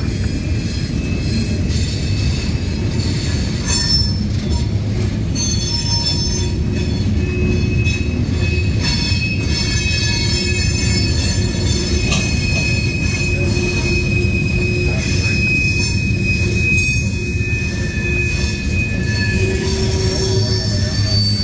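Freight train boxcars rolling past at close range: a steady heavy rumble of steel wheels on rail, with thin high-pitched wheel squeals coming and going over it.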